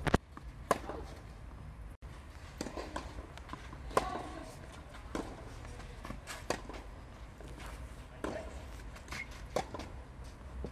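Tennis rally on a clay court: a ball struck back and forth by rackets, with sharp hits and bounces every second or so, and the players' footsteps scuffing on the clay.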